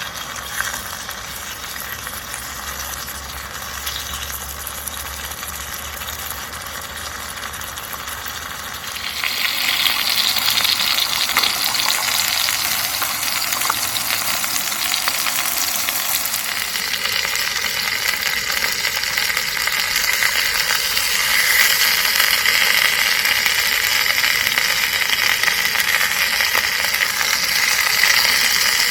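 Food frying in a hot pan, a steady sizzle that gets louder about nine seconds in.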